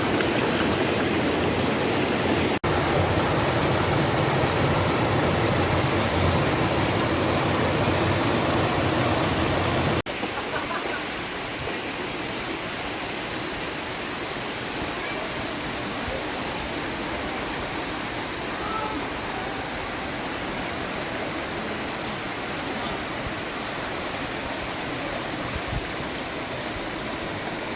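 Rushing water of a forest stream and waterfall: a steady, full rush for about ten seconds, then an abrupt change to a quieter, thinner rush of running water.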